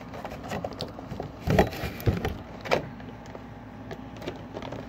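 Cardboard-and-plastic gift box being handled while its taped end is worked at: scattered taps and knocks, the loudest about a second and a half in and another just under three seconds in.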